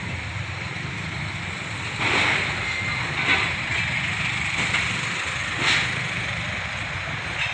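Cars and SUVs passing close by at low speed in a slow line of traffic: engines running and tyres on the road. A louder pass begins about two seconds in, and two short sharp knocks come later.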